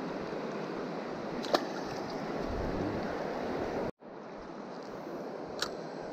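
Shallow river current rushing steadily over stones. It cuts out for an instant about four seconds in and starts again, and two short sharp clicks come through, one in each half.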